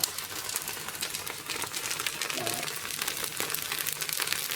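Uthappam batter frying in oil in a pan, sizzling with a dense, even run of fine crackles.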